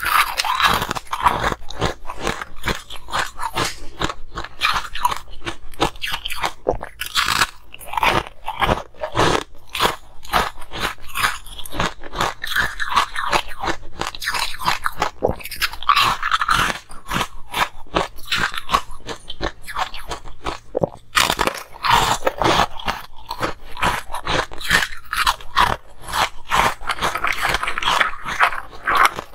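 Frost-covered ice cubes being bitten and chewed close to a clip-on microphone: a dense run of sharp crackling crunches, with a short pause about two-thirds of the way through.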